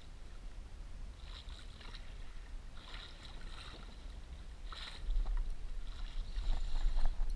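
Sea water sloshing and splashing against the hull and outrigger float of a small outrigger boat, in washes every second or two. Wind rumbles on the microphone and grows louder from about five seconds in.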